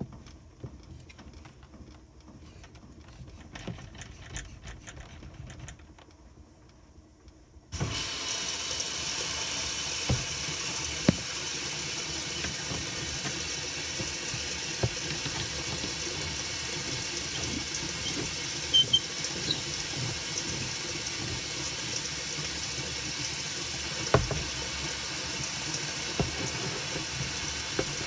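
Water running from a utility sink tap: it comes on suddenly about eight seconds in and then pours steadily, with a few knocks near the middle and end.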